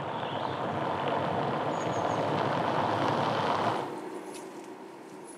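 Car driving along a road toward the listener: steady tyre and engine noise that builds slightly, then cuts off about four seconds in to a quieter, steady hum.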